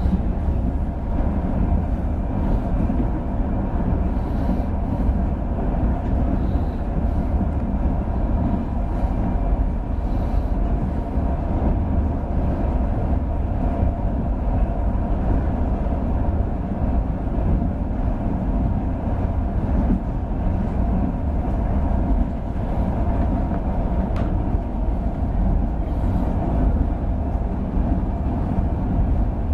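Passenger train running at speed, heard from inside the carriage: a steady rumble of wheels on the rails.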